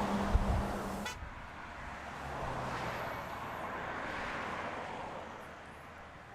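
Outdoor ambience in strong wind: heavy low wind rumble with a steady hum that cuts off abruptly about a second in, then a softer rushing that swells and fades again, with road traffic.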